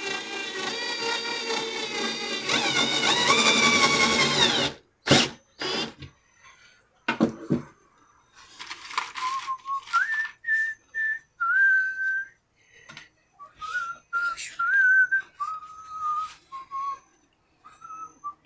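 A small electric power tool motor runs, its pitch rising toward the end, and cuts off about four and a half seconds in; a few sharp knocks follow. Then a person whistles a tune in short held notes.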